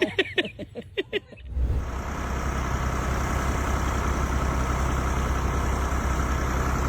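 A short run of laughter, then a vehicle engine running steadily with a low rumble.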